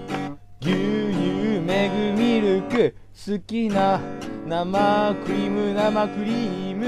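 A man singing a goofy song about his favourite foods (megu-milk, whipped cream) to a strummed acoustic guitar.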